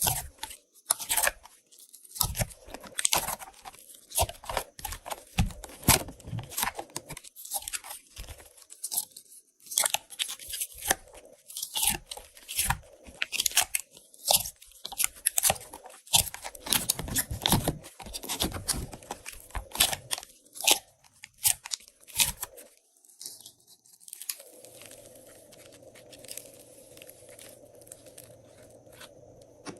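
Glossy slime being squeezed and kneaded by hand, a dense run of sticky crackles and pops. About three quarters of the way through the crackling stops, leaving a faint steady hum.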